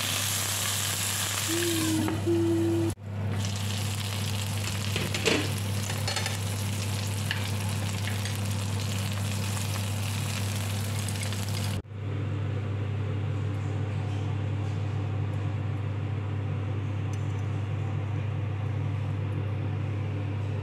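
Chicken wings frying in oil, a steady sizzle over a constant low hum. The sound drops out suddenly twice, about three seconds in and near twelve seconds, and is duller after the second break.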